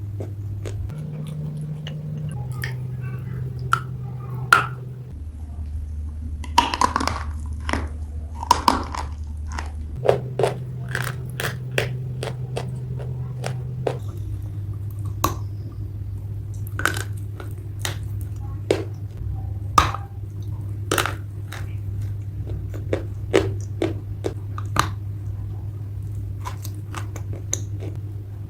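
Wet gray clay being bitten and chewed close to the microphone: irregular crunchy, squishy clicks, a few at a time, over a low steady hum that shifts pitch several times.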